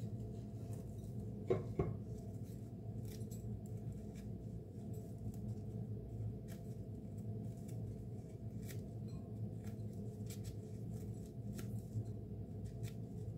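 Crusty baked bread being torn apart by hand, with small dry crackles as the pieces drop into a glass bowl. A brief glassy knock comes about a second and a half in, over a steady low hum.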